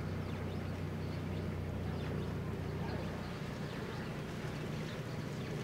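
Steady low hum of a van's engine and road noise heard from inside the cabin, the deepest part of the hum thinning a little past halfway.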